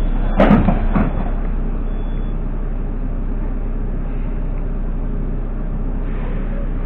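Metro train running between stations, a steady rumble and hum inside the car, with two sharp clunks about half a second and one second in.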